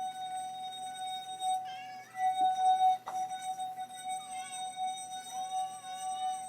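A loud, steady electronic tone holds one pitch, with a few higher steady tones above it. Short wavering mews from cats break in over it several times, and there is a sharp click about three seconds in.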